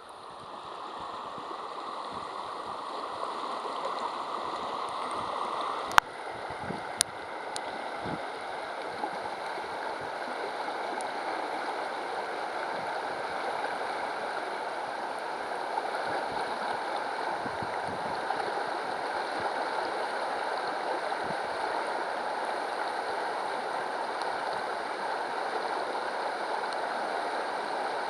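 Shallow river riffle babbling and rushing steadily as the current churns over stones, mixing air into the water; the sound swells up over the first few seconds. Two sharp clicks come about six and seven seconds in.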